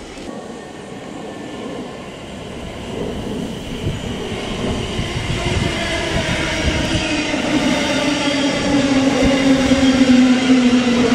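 Thameslink Class 700 electric multiple unit approaching and running in along the platform, its wheels rumbling on the rails and growing louder. From about six seconds in there is a strong whine that slowly falls in pitch.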